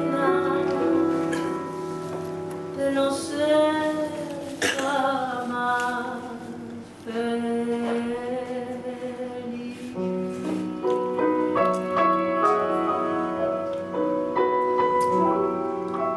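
Female voice singing a tango with grand piano accompaniment, the voice holding long, wavering notes.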